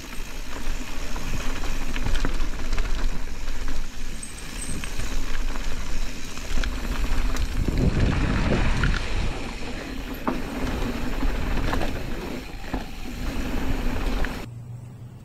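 Mountain bike riding along a dirt singletrack trail: a steady rumble of tyres on dirt, with many small clicks and rattles from the bike, rougher for a second or two midway. The noise drops suddenly near the end.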